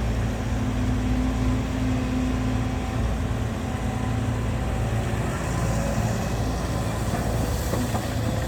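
Heavy-vehicle diesel engine running steadily at a constant speed: an even, low hum that does not change.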